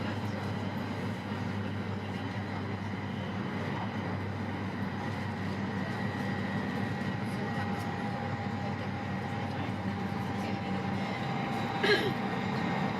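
Steady low rumble and hum of a moving vehicle, with a brief sharper sound near the end.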